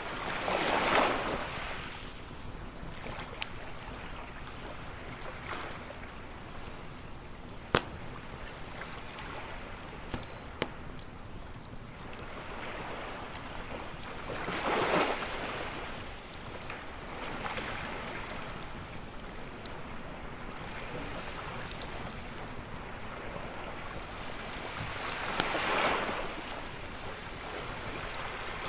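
Ocean waves washing ashore over a steady hiss, one swelling and breaking about a second in, another around the middle and another near the end, with the sharp single pops and crackles of a burning wood campfire.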